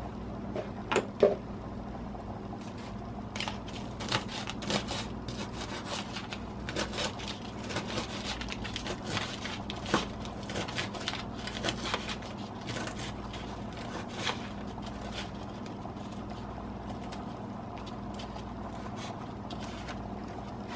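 Crisp cooked bacon being cut up on a paper plate: a run of small crunches, crackles and scrapes that thins out after about fifteen seconds, over a steady low hum.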